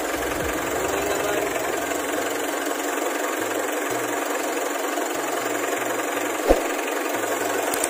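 Nissan NV350's turbo-diesel engine idling steadily, heard from underneath beside the freshly replaced turbocharger during its break-in run, with no hiss of a boost or exhaust leak. A single short knock about six and a half seconds in.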